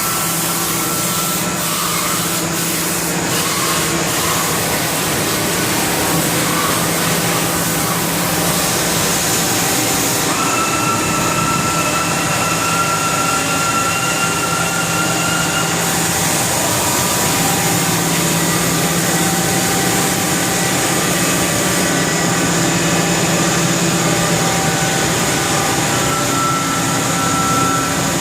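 Haas VF-4SS CNC vertical machining center running with its flood coolant on: a steady rushing hiss under several steady whine tones, with a higher whine coming in about ten seconds in.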